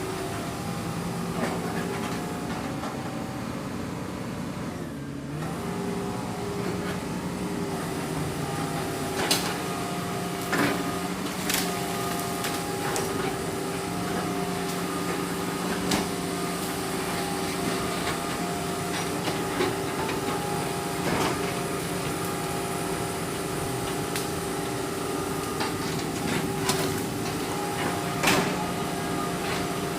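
Excavator engine running steadily under load, briefly dipping in pitch about five seconds in and then recovering. Sharp knocks and clanks come through it several times.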